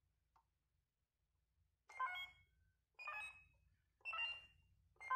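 DX Faiz Blaster toy's electronic sound effect: a short ringing, ringtone-like tone repeated about once a second, four times, starting about two seconds in after near silence.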